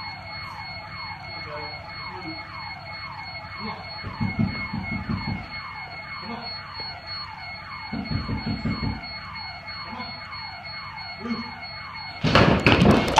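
House alarm siren sounding: a falling whoop repeated two or three times a second over a steady high tone, set off by a deer that has broken into the house. Bursts of clattering about four and eight seconds in, and a loud clatter near the end.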